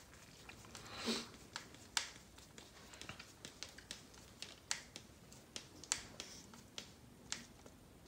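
Faint, irregular clicks and taps of a hex driver and hard plastic parts as a small screw is driven into an RC car's plastic rear assembly and the parts are handled.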